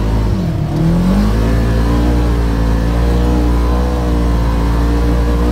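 Polaris RZR side-by-side's engine running steadily under way, heard from the driver's seat; about half a second in its note dips briefly and climbs back up, then holds steady.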